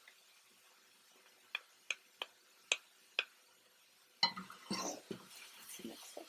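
Spoon clinking and scraping against a cooking pot. About five light, separate clinks come about a second and a half in, then a louder cluster of knocks and scraping about four seconds in.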